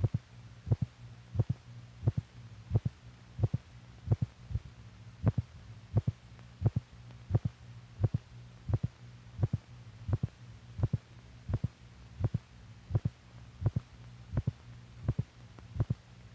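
Recorded heartbeat, amplified: a regular beat about one every 0.7 seconds, each a short sharp thud, over a steady low electrical hum.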